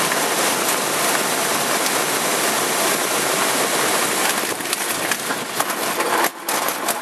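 Loud, steady rushing noise of wind buffeting the microphone, with no clear engine note; it turns choppy and crackly after about four and a half seconds and drops out briefly about six seconds in.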